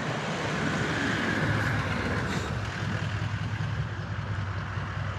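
Motor vehicle engine running with a steady low drone, over a haze of street traffic noise.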